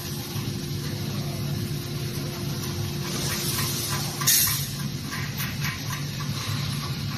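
Steady machine hum and hiss of workshop machinery, with a short loud burst of noise about four seconds in, followed by a few light clicks.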